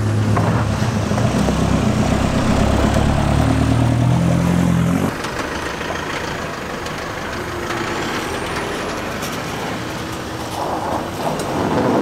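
Diesel four-wheel-drive engines running close by as vehicles crawl past on a gravel track. The loud, deep engine note cuts off suddenly about five seconds in, leaving quieter engine and rushing noise.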